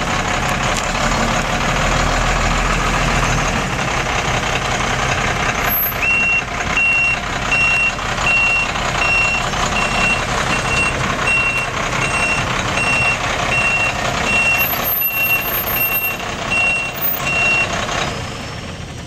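A 1992 Ford F800 dump truck's engine running as the truck moves. From about six seconds in, its backup alarm beeps steadily, about one and a half beeps a second, until shortly before the end, when the beeping stops and the engine sound eases.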